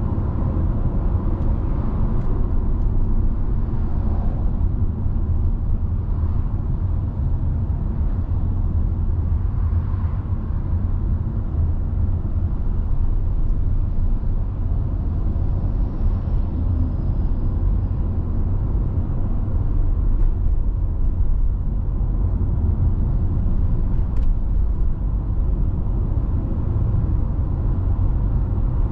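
Car driving along a road: steady low rumble of tyres and engine, with no change in pace.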